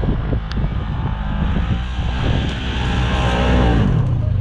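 Polaris RZR 900 side-by-side's twin-cylinder engine running hard up a hill, getting louder as it nears, its pitch sweeping with the throttle between about halfway and near the end.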